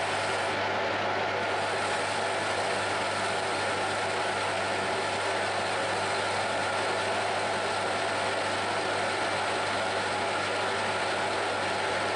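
Metal lathe running steadily while the tool takes a facing cut across the end of the engine cylinder: an even machining noise over a constant low hum.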